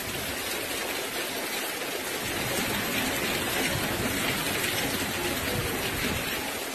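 Hurricane rain pouring heavily with gusting wind, a steady dense hiss that swells about halfway through.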